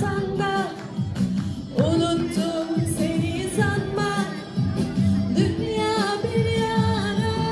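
Pop song with a singing voice holding long notes over a steady beat.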